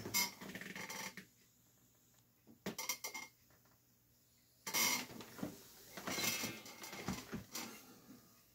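Faint handling noise of a man settling in with an acoustic guitar: scattered clicks, knocks and rustling in three short spells, with a sharp click right at the start.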